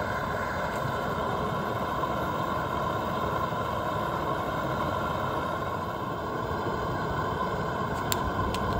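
Propane fish fryer burner running steadily under the heating grease, with a continuous even roar. A couple of sharp clicks come near the end.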